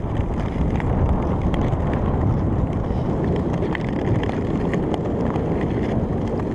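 Wind noise on the microphone of a camera carried by a skater gliding on Nordic long-distance skates over snow-covered lake ice, with the scrape of skate blades and scattered sharp ticks on the ice.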